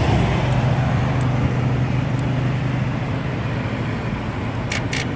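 Yamaha TMAX scooter's starter cranking the engine steadily without it catching, a no-start that the owner suspects is a battery problem. Near the end a rapid clicking sets in, about five clicks a second.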